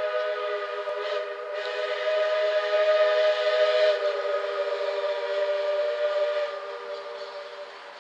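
Steam locomotive Skookum No. 7 blowing a long whistle blast, a chord of several steady notes held for several seconds, then fading away near the end.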